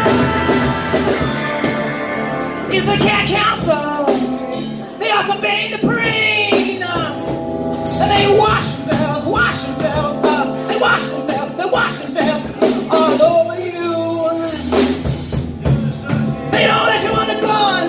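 A live rock band playing a song, with a drum kit, electric guitar, electric bass and keyboard, and a bending melodic line over the top.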